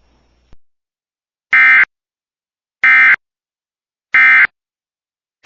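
Emergency Alert System end-of-message signal: three short, identical buzzy bursts of SAME digital data tones, about 1.3 seconds apart, marking the end of the broadcast alert.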